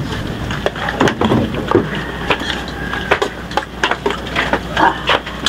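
Irregular clatter and knocks of spoons, plates and pots on a wooden table as people eat and serve food.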